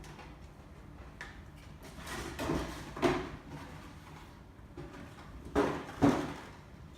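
Hands handling a plastic figure and its parts: a short scrape, a knock, then two sharper clicks about half a second apart near the end.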